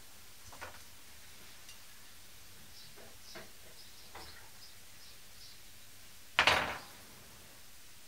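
Light clicks and taps of a copper brake pipe and its fitting being handled and bent by hand, then one loud, sharp knock about six seconds in.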